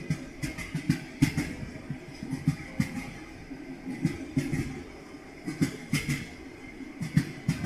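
Train wheels clattering over rail joints: a steady rumble broken by irregular knocks and clicks, several a second.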